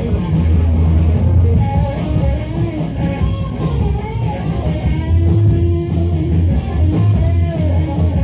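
Blues-rock band playing live: a Fender Stratocaster electric guitar over bass and drums, with strong bass notes changing every second or so. The recording is low-fidelity.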